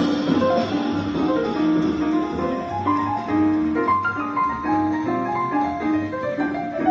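Instrumental music: a quick melody of short single notes over a low, pulsing bass line.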